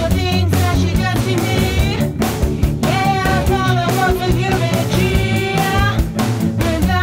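Recorded rock band music: a steady drum beat under a wavering lead melody.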